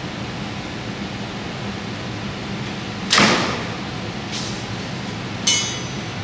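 Mathews Lift 33 compound bow at 70 lb and 29.5-inch draw being shot: release, string and arrow strike merge into one sharp crack about three seconds in, with a short ring-out. The arrow passes through the chronograph at about 289 fps.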